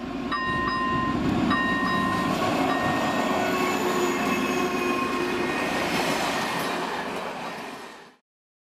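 Diesel-hauled passenger train passing close by: a steady rumble from the locomotive and the rolling coaches that fades near the end and then cuts off suddenly. Near the start two held high tones sound over it, the first about a second long and the second about a second and a half.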